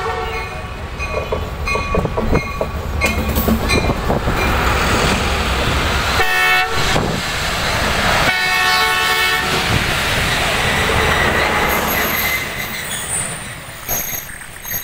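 A diesel-electric passenger locomotive pulls into the station, its engine rumbling and its horn sounding as it arrives, then two more horn blasts about six seconds in and again two seconds later. The coaches then roll past with steady rail noise, and the wheels squeal near the end as the train slows.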